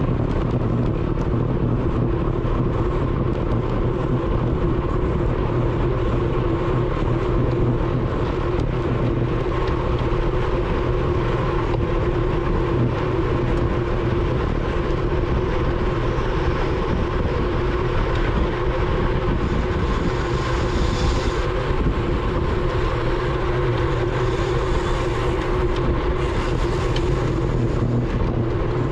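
Steady rush of wind and tyre-on-road rumble from a road bike ridden fast in a criterium pack, heard on a bike-mounted action camera, with a steady hum beneath it.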